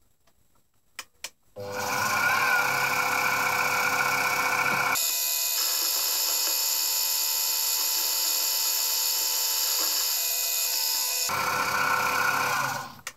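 Benchtop mini mill's spindle running with a boring head cutting a hole in an aluminium block: a steady machine whine with several high tones, starting about a second and a half in after a couple of clicks and stopping near the end. About five seconds in the low part of the sound drops away abruptly, and it returns near eleven seconds.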